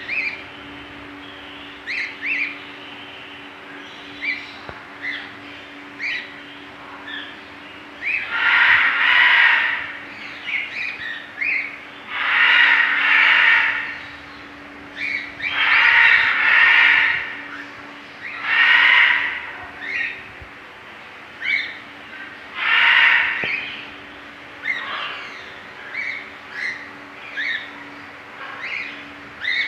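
Cockatiels calling: a run of short chirps broken by five longer, harsh screeching calls of about a second each.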